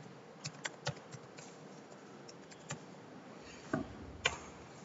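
Faint keystrokes on a computer keyboard: a string of short, separate clicks at an uneven pace as a word is typed, with two louder clicks near the end.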